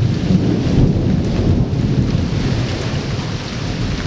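Rolling thunder rumbling low over steady falling rain, slowly dying away.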